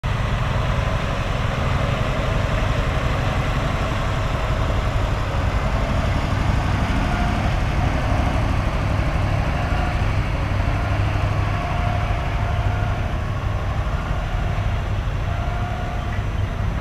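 Large truck engine running steadily with a heavy low rumble, and a faint whine above it that comes and goes.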